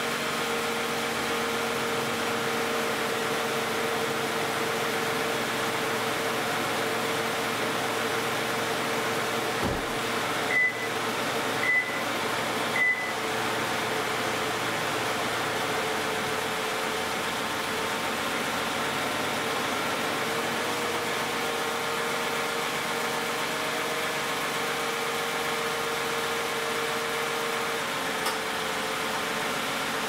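2010 Toyota Camry's 2GR-FE 3.5-litre V6 at 161,500 miles, idling steadily while it warms up after a cold start. A car door thuds shut just before ten seconds in, followed by three short high beeps about a second apart.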